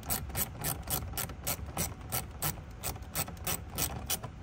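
Ratcheting hand screwdriver clicking rapidly, about five or six clicks a second, as plastic trim screws are driven in by hand.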